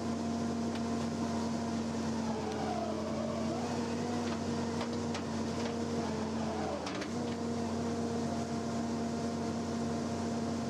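A machine's engine running steadily at one pitch, with a few faint clicks in the middle.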